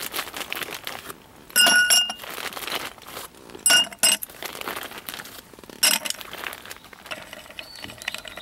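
Ice cubes dropped one by one into a tall drinking glass, each one clinking against the glass with a short ringing tone, several times. Near the end come lighter, quicker clinks as the ice is stirred in the glass with a thin stick.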